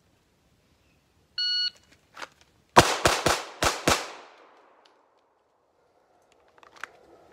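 A shot timer's start beep, then a pistol fires five rapid shots about a second later, three and then two, with echo trailing off: the 3-and-2 drill, three to the body and two to the head, drawn from concealment at the timer's signal.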